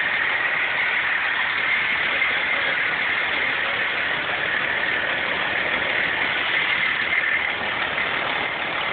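Fire engine's engine running steadily at idle, with a steady high-pitched whine over it.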